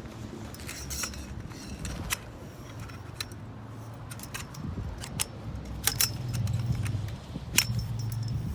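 A series of light metallic clinks and rattles, as of small metal objects being handled, over a steady low hum.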